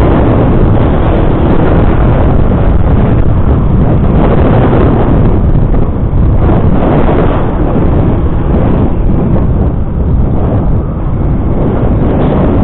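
Loud, steady wind rush and road noise on the microphone of a moving motorcycle, dipping briefly a couple of times.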